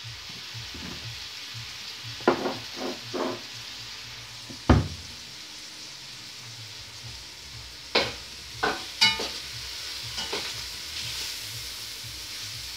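Minced meat and peppers sizzling in a pot on the stove, a steady hiss throughout. Over it come several knocks and clatters: a few a little after two seconds, one loud low thump just before five seconds, and a cluster around eight to nine seconds.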